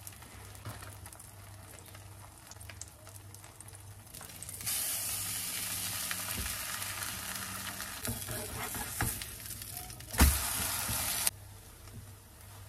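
Food sizzling in a pan: a steady hiss starts suddenly about five seconds in and cuts off abruptly near the end, with a sharp knock a second before it stops. Before the sizzling there is only a faint low hum.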